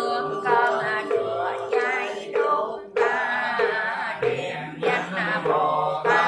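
Buddhist prayer chanting, with a knock keeping time about every two-thirds of a second.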